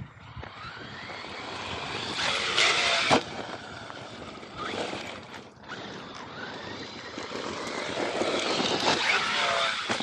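RC monster truck driving over dirt, its motor whine rising and falling with the throttle as it surges twice, with tyre and gravel noise and a sharp knock about three seconds in.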